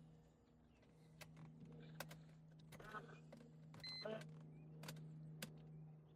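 Near silence: a faint steady hum with scattered small clicks and taps.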